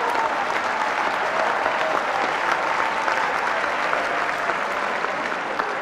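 A large audience applauding in a hall after a joke: dense, steady clapping that starts to ease off near the end.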